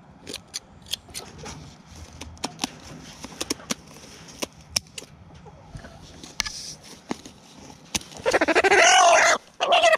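Scissors snipping through a chicken's wing feathers as the wing is clipped: a run of sharp separate clicks. Near the end the held chicken gives one loud squawk lasting about a second.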